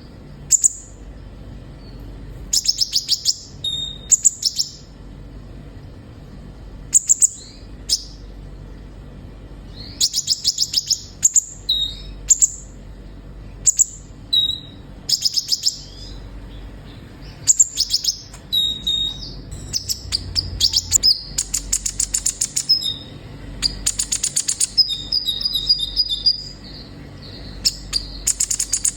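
Sunbird (the 'kolibri ninja' of Indonesian bird-keepers) singing: repeated short, high-pitched bursts of rapid chirps and trills, a phrase every second or two, some ending in a brief clear whistle.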